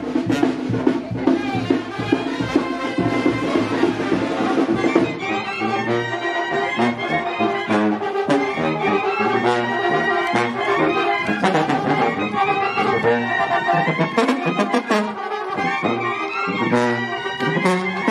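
Brass band music: trumpets and trombones playing a melody over drum hits. A dense passage gives way about five seconds in to distinct held notes.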